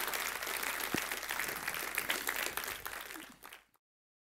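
Audience applauding, fading away and cutting off to silence about three and a half seconds in.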